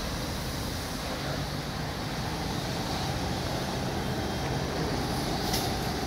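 Road traffic: cars driving off and passing close by, with engine and tyre noise over a steady rush.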